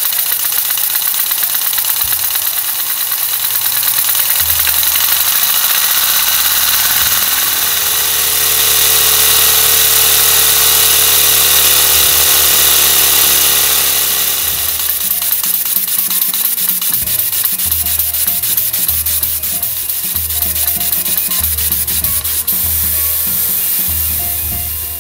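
Comber rotary model engine running fast on compressed air at about 1800 rpm and 40 psi, its exhaust beats so quick they merge into a rapid hissing rush. It grows louder in the middle and eases off again.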